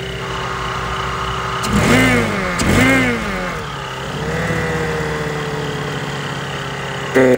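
Citroen C1's 1KR-FE three-cylinder engine running with a newly fitted belt-driven AMR500 supercharger, revved twice in quick succession about two and three seconds in, then settling back to idle. A steady whine runs alongside the engine note.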